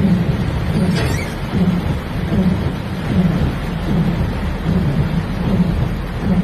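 Heavy storm rain and rushing floodwater: a loud, steady rumbling rush with a low throb recurring a little more than once a second.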